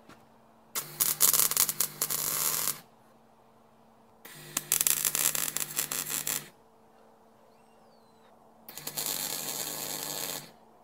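Electric arc welder crackling and sizzling in three separate welds, each about two seconds long, with a low hum under each. These are short welds joining motor supports to a steel outboard frame.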